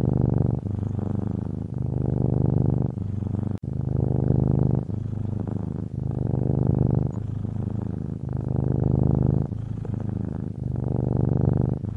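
Domestic cat purring steadily, the rumble swelling and fading with each breath about once every second and a half. A brief click about three and a half seconds in.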